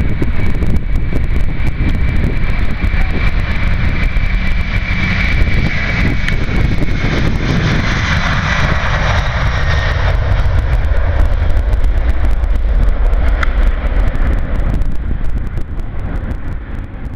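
Airbus A300 freighter's jet engines at takeoff power: a loud, continuous rumble with a high whine that dips slightly in pitch as the aircraft rolls past and lifts off, then fades near the end as it climbs away.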